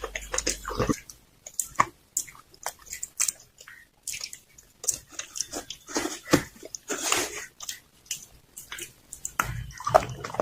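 Slate pencil being bitten and chewed close to the microphone: irregular sharp crunches and crackles, thinning out briefly near the end.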